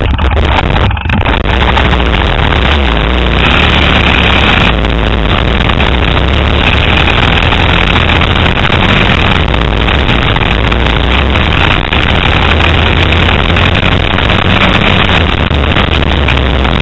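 Motocross bike engine running continuously as the bike laps the track, heard loud and close from a camera riding on the bike, with a steady low engine note under a dense rush of noise.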